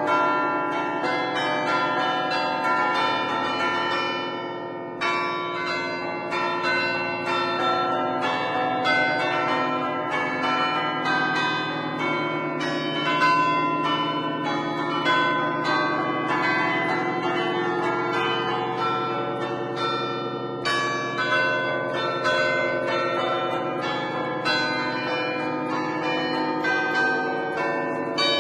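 Concert of ten church bells cast by Barigozzi, tuned in A, played from a baton keyboard in a fast, continuous run of strikes: a traditional festive 'allegrezza' tune, each bell ringing on under the next. There are brief pauses in the run about four seconds and twenty seconds in.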